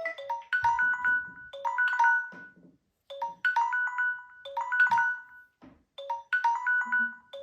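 Smartphone timer alarm ringing: a short, bright, chime-like phrase that opens on a lower note and repeats about every second and a half.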